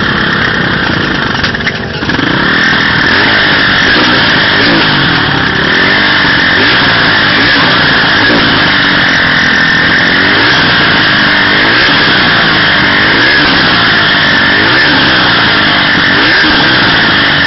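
Off-road dirt bike and quad engines revving unevenly, the pitch rising and falling again and again, with more than one engine at once.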